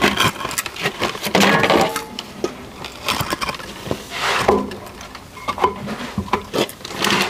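Irregular knocks and clinks of hard objects being handled.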